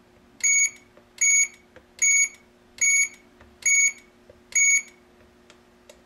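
GSM alarm control panel's built-in buzzer beeping six times, short high-pitched beeps evenly spaced a little under a second apart, answering presses on its keypad.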